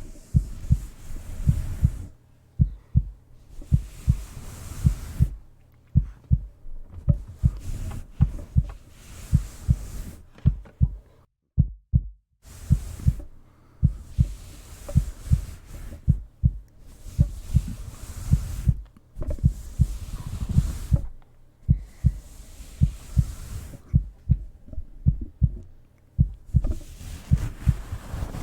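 Slow heartbeat of paired lub-dub thumps about once a second, with stretches of soft rubbing noise from petting over the microphone lasting a second or two. Both stop briefly near the middle.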